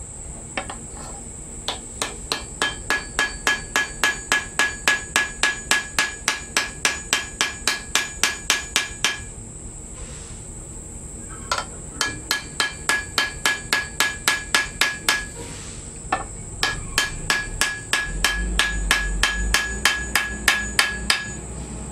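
Ball-peen hammer tapping a sword handle's pin rivets against an anvil, peening them flat. It comes in three rapid runs of about three to four light blows a second, with brief pauses between them, and each blow leaves a ringing metallic note.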